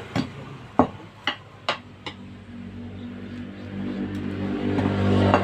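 Five sharp metallic knocks in quick succession, a tool striking the motorcycle tyre and wheel rim to seat the tyre bead. Then a steady low hum grows louder toward the end.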